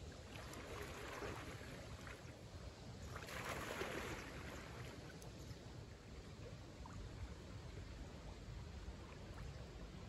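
Water splashing and sloshing as a swimmer wades through a lake and starts to swim, louder about a second in and again around three to four seconds in.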